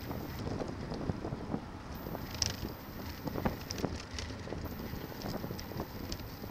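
Wind buffeting the microphone of a camera on a moving bicycle, over a steady rumble of tyres on the road. A few sharp clicks and rattles come about halfway through, as the bike jolts over rough pavement.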